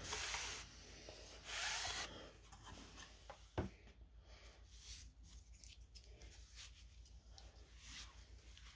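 A hand rubbing across a card-game playmat, two short brushing strokes in the first two seconds, then a single tick about three and a half seconds in and faint rustling.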